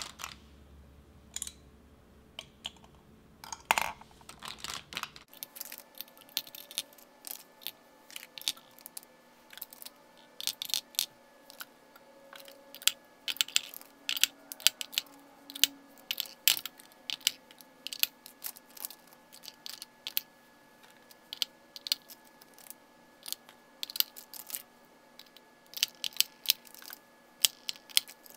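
Lipstick tubes clicking and tapping against a clear acrylic lipstick organizer and against one another as they are slotted into its compartments. The sharp clicks come irregularly, a few at a time, and grow more frequent after the first few seconds.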